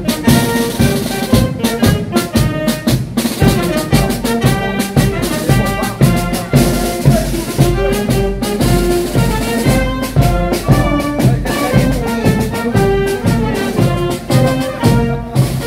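Brass band music: brass instruments playing a tune over drums that keep a regular beat.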